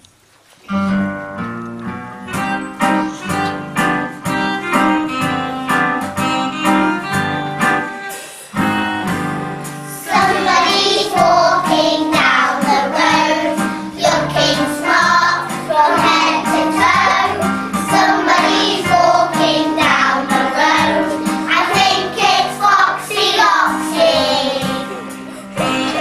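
A children's song starts about a second in, opening with a bouncy plucked-guitar accompaniment; about ten seconds in, young children's voices come in singing over it.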